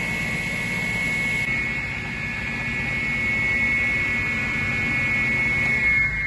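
Sliding table saw running, its 254 mm blade spinning at full speed with a steady high whine over the motor's hum.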